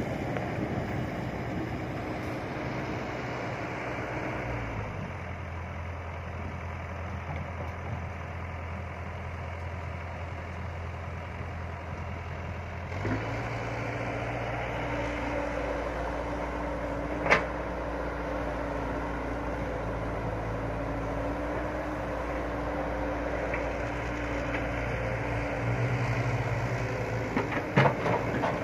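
Excavator's diesel engine running steadily. Its low note shifts twice as the load changes, and there is one sharp click near the middle and a few knocks near the end.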